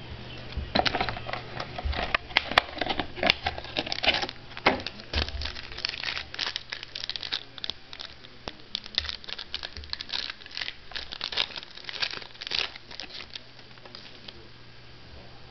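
Trading-card pack wrapper being torn open and crinkled, a dense run of irregular crackling and rustling, busiest in the first few seconds and thinning out near the end.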